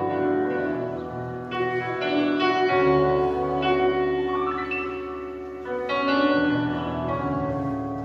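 Electric keyboard played live: slow, sustained chords, a new one struck every second or few and left ringing.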